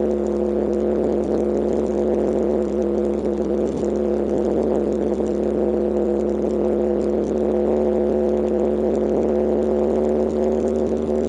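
Kawasaki KLX125's single-cylinder four-stroke engine running at a steady, unchanging pitch as the trail bike rides along at constant speed.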